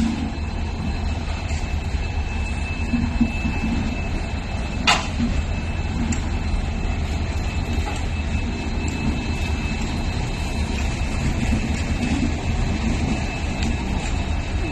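Humsafar Express LHB passenger coaches rolling slowly past on the adjacent track, a steady rumble of wheels on rails. A single sharp clank comes about five seconds in, and a faint, thin high tone holds steady throughout.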